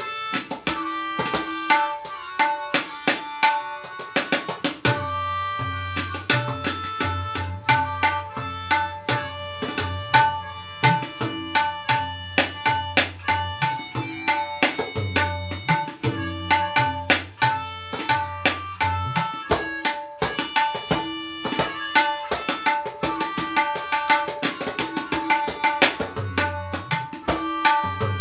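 Tabla solo in teentaal, most likely the opening peshkar: quick, ringing strokes on the treble drum, with deep bass-drum strokes joining about five seconds in and dropping out for short stretches later on.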